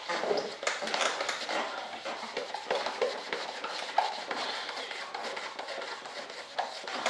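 Cloth scrubbing fine polishing compound by hand over the surface of a composite mold: a continuous, irregular rubbing sound, with one sharper tap about four seconds in.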